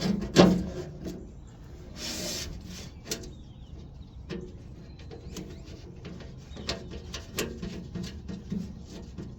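Scattered clicks and knocks of bolts, washers and a plastic part being handled and fitted on a skid steer, with a sharp knock about half a second in and a short rush of noise around two seconds in.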